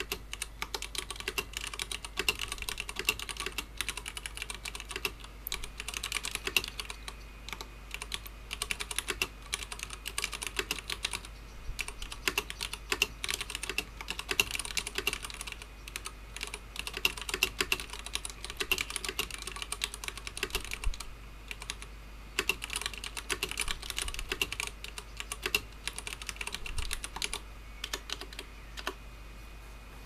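Touch-typing at about 65 words a minute on a Leopold FC750R tenkeyless mechanical keyboard with Cherry MX Brown tactile switches and PBT doubleshot keycaps: a fast, uneven patter of key strokes in runs broken by short pauses, stopping near the end.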